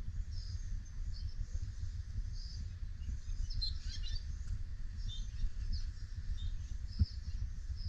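Small birds chirping in short, high calls, most thickly about halfway through, over a steady low rumble, with one brief low bump near the end.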